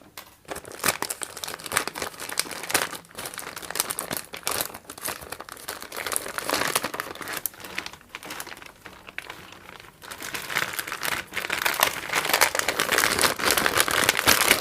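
Packaging being torn open and handled: an irregular crinkling and crackling of the seal and wrapper as it is ripped off. It grows louder in the last few seconds.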